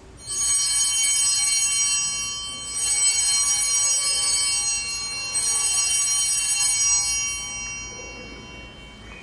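Altar bells rung three times, about two and a half seconds apart, each ring held for a couple of seconds and then fading. These are the consecration bells marking the elevation of the host.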